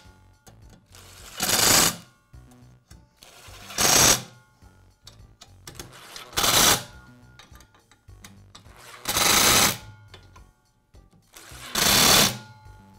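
Cordless screwdriver whirring in five short runs about two and a half seconds apart, each run driving one of the screws that fasten a circular saw's aluminium base plate tight.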